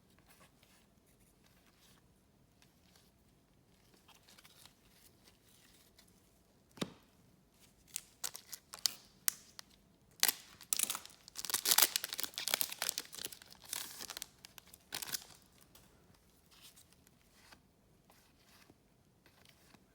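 A trading card pack wrapper being torn open and crinkled: a few light clicks, then a dense run of sharp crackling and tearing about halfway through that stops after about five seconds.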